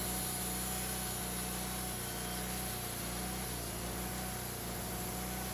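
An engine or motor running steadily at an even speed, a constant low hum with a thin steady whine above it.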